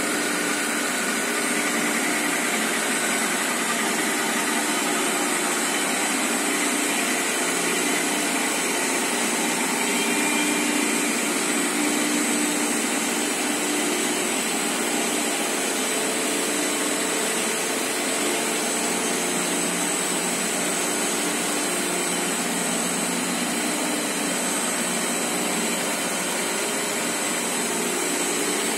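High-speed tissue-paper slitting machine running: a steady, even machine noise with a few faint steady tones in it.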